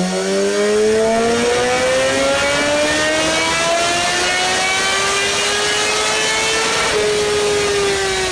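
Motorcycle engine pulling under load on a Dynojet rolling-road dyno, exhausting through a carbon-fibre silencer: a smooth dyno run with the engine note rising steadily through the revs for about seven seconds, then falling away near the end.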